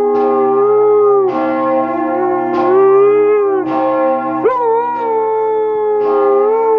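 Church bells pealing, struck about once a second and ringing on between strikes, with a Siberian husky howling along in long, wavering howls; near the middle the howl breaks and swoops up sharply.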